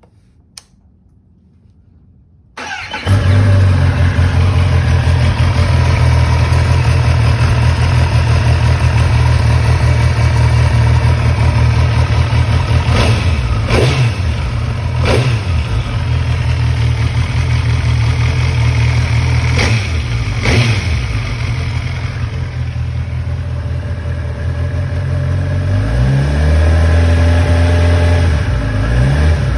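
2011 Kawasaki ZX-10R's inline-four engine starting about two and a half seconds in, then idling, with several short throttle blips near the middle and a longer rev near the end.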